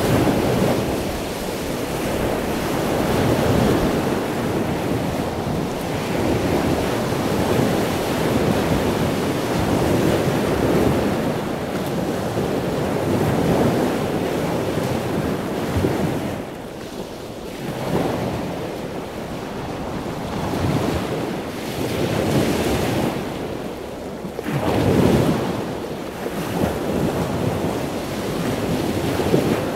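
Heavy surf breaking and washing over jetty rocks, with strong wind buffeting the microphone. The noise surges and eases every few seconds as waves come in.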